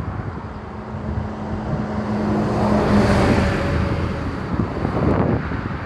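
A road vehicle passing over the crossing: a steady engine hum and tyre rush that grow louder to a peak about three seconds in, then fade, with wind on the microphone throughout.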